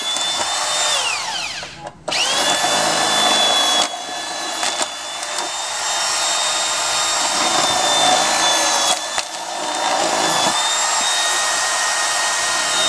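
Electric drill boring holes through the plastic back of a Philips LCD monitor that has no VESA mounting holes. Its whine falls and stops about two seconds in, then it starts again and runs steadily, with a brief dip and a few sharp clicks along the way.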